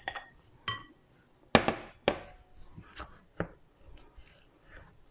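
A utensil knocking and clinking against a glass mixing bowl while stirring a stiff grated-coconut batter: a handful of separate knocks, the loudest about a second and a half in.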